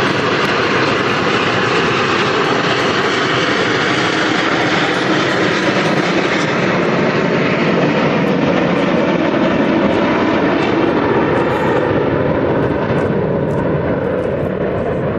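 Jet engines of the nine-ship Frecce Tricolori formation of Aermacchi MB-339 PAN jet trainers flying overhead: a loud, steady jet noise that turns duller in its upper range near the end as the formation climbs away.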